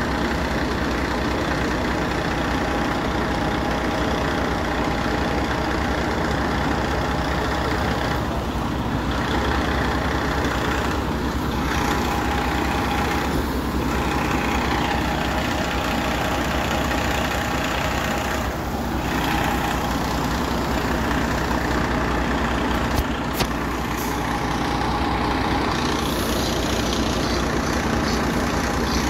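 FDNY fire apparatus diesel engines idling steadily at close range, with a steady tone riding over the engine rumble and a couple of faint clicks a little over three-quarters of the way through.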